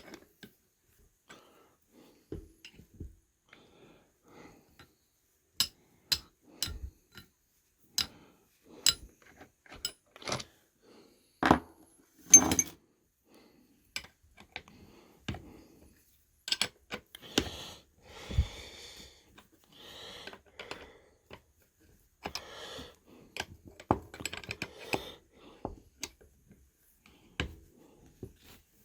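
Irregular metallic clicks, clinks and knocks of a hand wrench and loose parts on a Suzuki Sidekick front differential housing, with softer scraping in the middle stretch.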